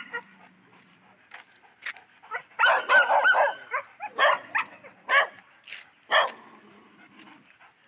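A dog barking: a quick run of several barks about three seconds in, then single barks roughly once a second before it trails off.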